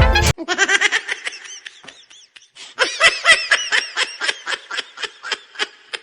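High-pitched laughter in quick repeated pulses, about four or five a second, fading out about two seconds in and then starting up again. A loud sound cuts off abruptly just after the start.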